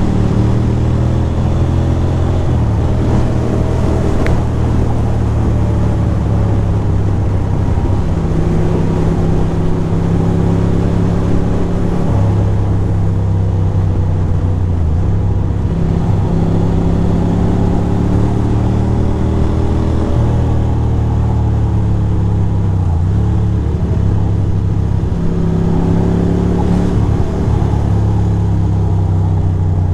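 Ducati Monster 620's air-cooled L-twin engine running under way, its note rising and falling many times as the throttle opens and closes and the gears change.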